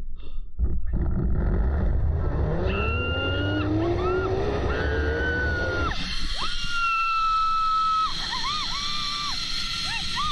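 Zip-line trolley running down the cable: a loud rumbling whir whose pitch climbs steadily as it picks up speed. It cuts off abruptly about six seconds in, and music carries on alone after that.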